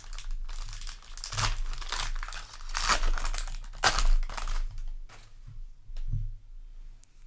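Trading-card booster pack wrapper being torn open and crinkled by hand, in bursts of crackling that are loudest in the middle, then a few faint clicks near the end.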